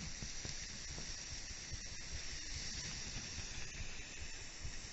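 Trevally fillets sizzling on a hot stainless steel barbecue hotplate: a steady high hiss.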